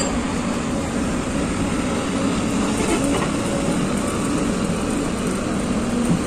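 Heavy diesel machinery running steadily: a crawler excavator loading a dump truck, with a low wavering engine hum under a broad noise.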